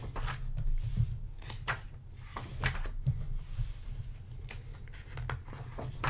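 Pages of a paperback graphic novel being turned by hand: a run of short paper flicks and rustles as the pages are leafed through.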